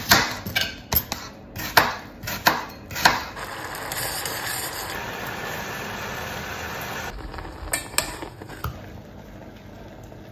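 A kitchen knife cutting an apple on a chopping board, several sharp knocks in the first three seconds. Then a steady hiss for a few seconds while oats go into a steaming stainless steel saucepan. A few clinks of cookware come near the end.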